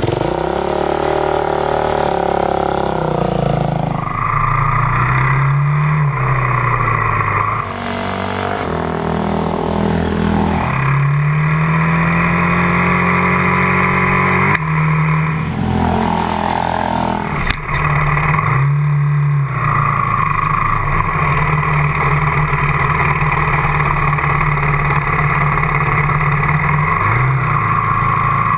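Kawasaki dirt bike engine running under way, its pitch rising and then dropping back several times as the rider accelerates and shifts through the gears.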